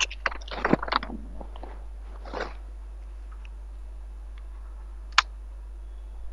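A quick run of clicks and crackles in the first second, a short soft rustle about two and a half seconds in, and one sharp click about five seconds in, over a steady low mains hum.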